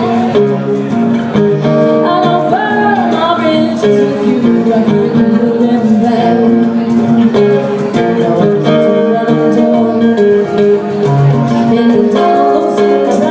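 Acoustic guitars playing a blues-rock song live, strummed chords under a picked lead line, in a stretch with no sung words.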